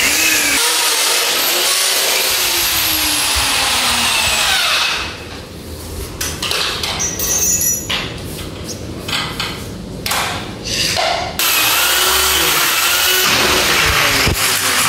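Corded power drill boring holes to fix a sliding-door frame, in two long runs: one at the start, with the motor's pitch slowly dropping, and another starting about eleven seconds in. Between them, a few seconds of quieter knocks and clinks.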